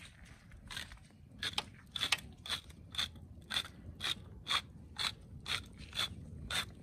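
Hand-twisted seasoning grinder ratcheting as it grinds over the camp oven, a regular click about twice a second.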